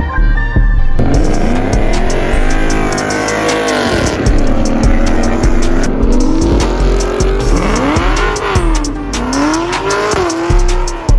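A car engine revving hard, its pitch climbing and dropping several times, with tyre squeal as the car does a smoky burnout. Music plays underneath.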